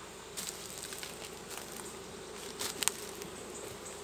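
Western honey bees (Apis mellifera) humming steadily around an opened hive. A few sharp clicks and scrapes of a metal hive tool prying frames in the wooden box, the loudest about two and a half seconds in.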